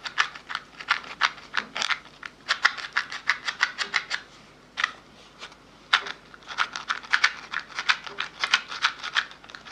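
Mouth sounds: rapid, irregular wet clicks and tongue smacks in clusters, with a couple of brief pauses around the middle.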